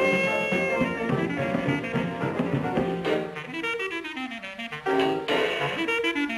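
Jazz-style band music with horns. About two thirds of the way through, a run of notes slides downward, then the band comes back in fuller.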